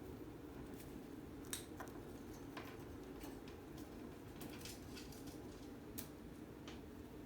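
Faint light clicks and taps, a few scattered ones, from cockatiels moving about with their beaks and feet on a cage or perch, over a steady low room hum.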